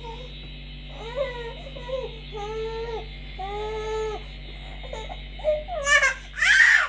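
Baby crying in a string of wails about a second each, ending in a louder, higher-pitched cry near the end, over a steady low hum.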